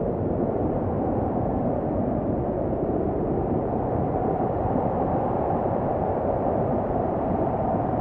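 Snowstorm wind blowing steadily, a low, even rushing noise with little high hiss and no gusts or breaks.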